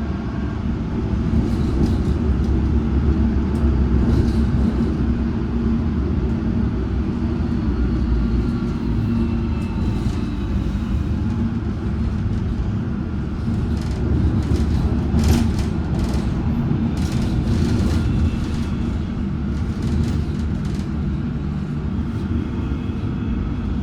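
Metropolitan Line S8 Stock train running between stations, heard on board: a steady low rumble from the wheels on the track, with a faint motor whine that shifts slowly in pitch. About two-thirds of the way through comes a run of sharp clicks and rattles.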